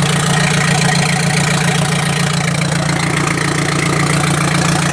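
1999 Audi A4 1.8T's turbocharged four-cylinder engine idling steadily, with an exhaust leak at the joint between the engine and the front pipe catalytic converter and the muffler disconnected, so the exhaust is loud and unmuffled.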